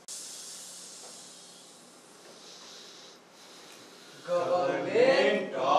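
Actors on stage hissing a long "shhh", which starts suddenly and fades away over about two seconds. About four seconds in, a man's voice starts up, louder than the hiss.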